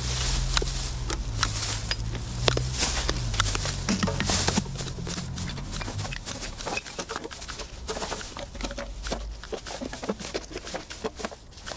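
Empty aluminium drink cans and bottles clinking and knocking as they are lifted with a litter-picker grabber and dropped into a plastic bin bag held open on a hoop, in a quick run of scattered clicks. A low hum underneath fades out about six seconds in.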